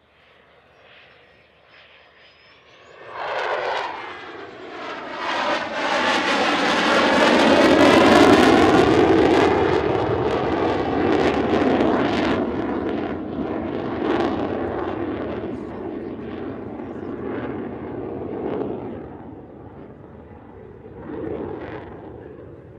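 A Belgian Air Component F-16 Fighting Falcon's single Pratt & Whitney F100 turbofan in afterburner flying past. It comes in about three seconds in and grows loud, with a sweeping, phasing whoosh and crackle at its peak. It then slowly fades away.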